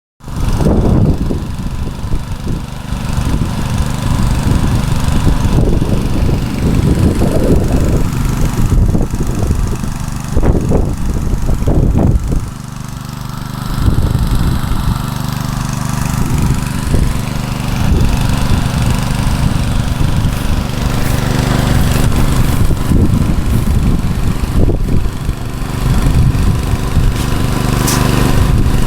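Robin 6.5 hp single-cylinder four-stroke petrol engine running steadily at constant speed. Irregular low rumbling comes and goes over the engine note.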